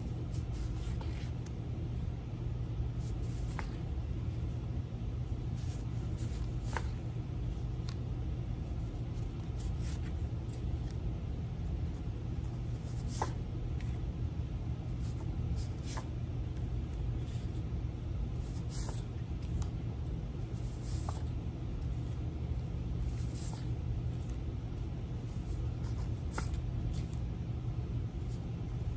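Steady low background hum, with a brief rustle of paper flash cards every two to three seconds as each card is pulled from the stack and the next one shown.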